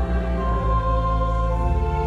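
Slow, sustained instrumental music: held chords over a deep bass, moving to a new chord every second or so.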